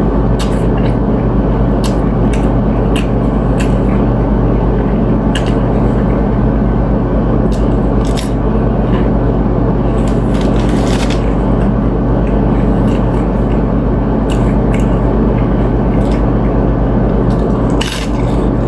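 Close-up eating sounds: scattered crunches, clicks and wet squishes of chips and tuna ceviche being bitten and chewed, over a loud, steady low hum.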